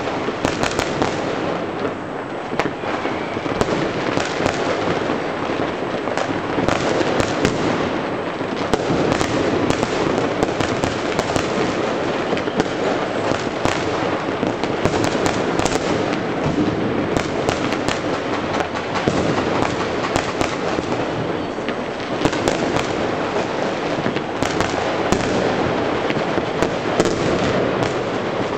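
Consumer fireworks and firecrackers going off across a city at once: a dense, unbroken din of rocket bursts and bangers, thick with sharp cracks.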